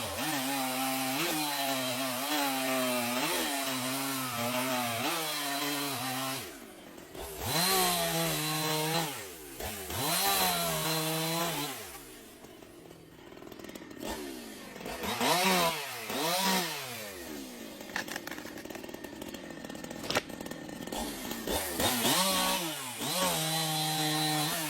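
Chainsaw running, its engine pitch wavering for the first several seconds, then dropping back and revving up again several times, with quieter lulls in between.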